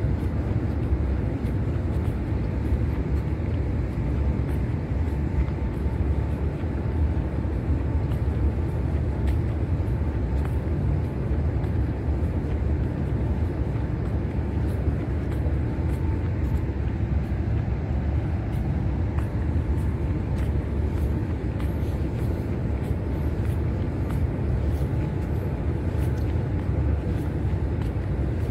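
Steady low rumble of wind buffeting a handheld camera's microphone while walking, with a faint steady tone above it.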